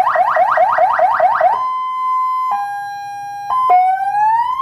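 An electronic fire-truck siren sounding through its horn speaker while being tested and switched between tones. It gives rapid rising sweeps, several a second, then changes about one and a half seconds in to a steady two-tone hi-lo. Near the end it starts a slow rising wail.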